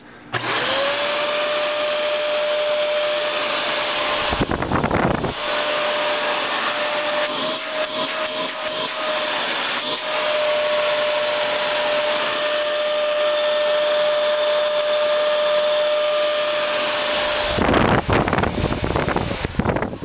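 Fantom Wildcat upright vacuum cleaner, run with its brush roll removed, starting up. Its motor spins up within the first second to a steady high whine over rushing air. The whine stops near the end and is followed by a couple of seconds of rough low rumbling.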